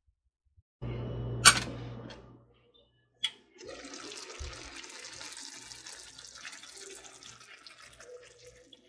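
A pot of noodles with eggs and broccoli simmering on the stove, giving a steady crackling sizzle that slowly fades. Before it there is a short stretch of handling noise with a sharp click about a second and a half in, and another click about three seconds in.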